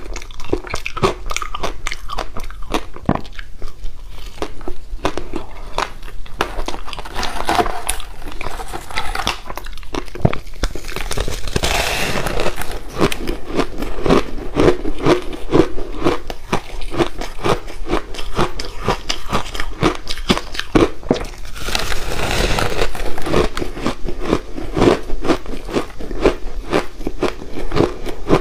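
Close-miked crunching of passion-fruit ice being bitten and chewed: a dense, continuous run of sharp cracks and crackles, with louder bites about twelve and twenty-two seconds in.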